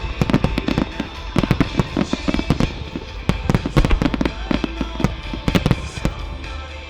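Aerial fireworks bursting in a rapid volley, many sharp bangs and crackles close together, thinning out about six seconds in, with music underneath.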